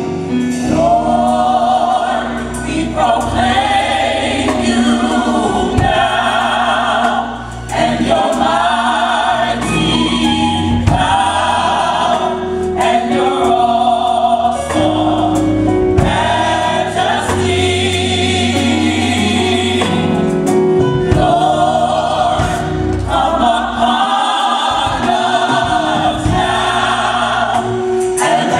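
Choir singing a gospel-style song with instrumental backing, in continuous phrases with sustained low notes underneath.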